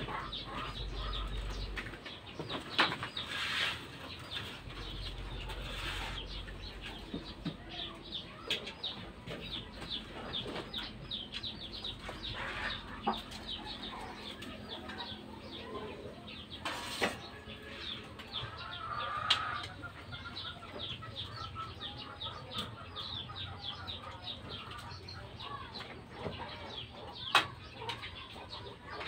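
Chickens clucking and chirping in quick short calls, with a few sharp knocks now and then.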